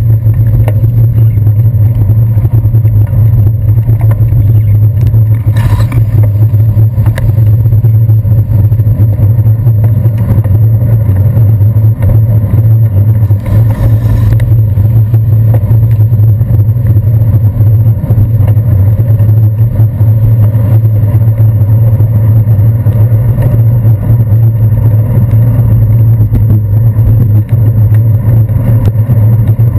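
Steady, loud, muffled rumble of riding a bicycle on wet city streets, picked up by a handlebar-mounted GoPro: road and handlebar vibration with a constant low hum. Passing cars and a bus sit muffled beneath it, one brief louder swish coming about fourteen seconds in as the bus goes by.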